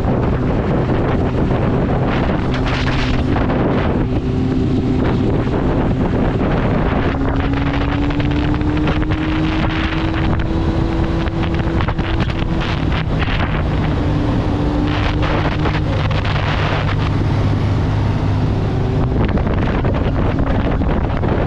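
Kawasaki ZX-9R Ninja's 900 cc inline-four engine running at cruising speed, heard through heavy wind buffeting on a helmet camera's microphone. The engine note rises gradually through the middle, then drops back to a lower, steadier note.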